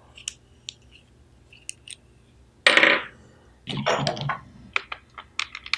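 Small camera-mount parts handled on a wooden table: scattered light clicks, a short clatter about three seconds in and another about a second later, then a quick run of clicks near the end as the parts are unscrewed and set down.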